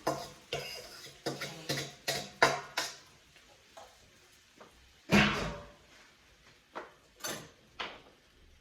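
Kitchen clatter from cookware being handled: a quick run of knocks and clicks, then a louder, deeper thud about five seconds in, and a few more knocks near the end.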